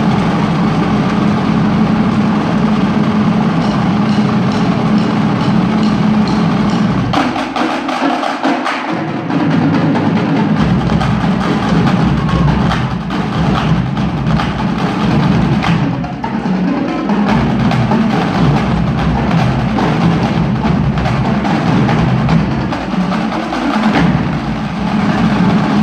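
Marching drumline playing: snare drums, tenor drums and marching bass drums in a fast, loud cadence with sharp stick and rim clicks. About seven seconds in, the deep bass drums drop out for a few seconds, leaving the snares and clicks, then come back in.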